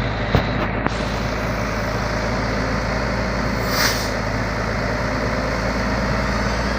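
Heavy diesel engine running steadily at idle, with a couple of small clicks near the start and a short hiss of air just before four seconds in.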